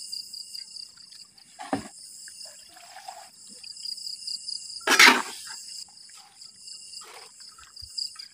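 Wooden paddle stirring boiled water spinach (kangkong) in a large metal wok, giving a few wet swishes and scrapes, the loudest about five seconds in. Crickets chirp steadily behind.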